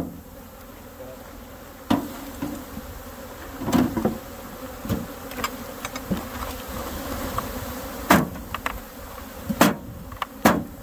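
Dense buzzing of a mass of honey bees being shaken from their hive, broken by several sharp knocks as wooden hive boxes are jarred against the shaker box to dislodge the bees.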